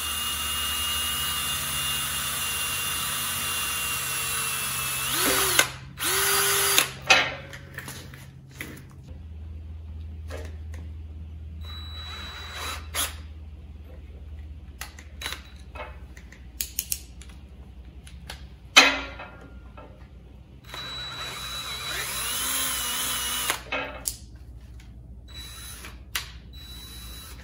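Cordless drill boring into a stuck threaded oil galley plug in a cast-iron small-block Chevy 327 block. It runs steadily with a high whine for about five seconds, then in a few short bursts, and again for about three seconds near the end, with scattered clicks and knocks from the tool between runs.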